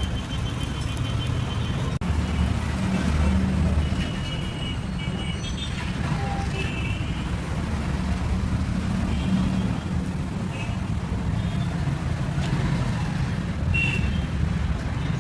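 Street traffic: a steady low rumble of passing engines, with scattered short high-pitched beeps.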